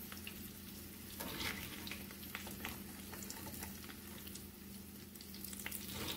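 Tacos dorados sizzling faintly in hot oil in a frying pan, with scattered sharp pops and clicks as metal tongs lift them out, over a steady low hum.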